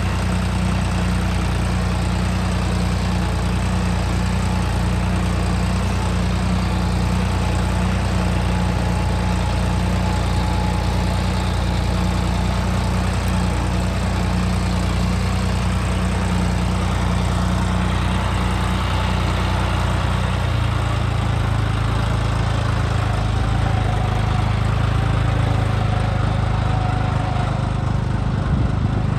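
John Deere 5310 tractor's three-cylinder diesel engine running steadily as the tractor drives with its reversible plough lifted out of the ground. About two-thirds of the way through, the engine note changes and settles lower.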